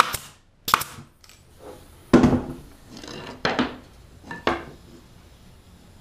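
Pneumatic brad nailer firing 1 1/4-inch brads into thin pine strips of a frame: about four sharp shots a second or so apart.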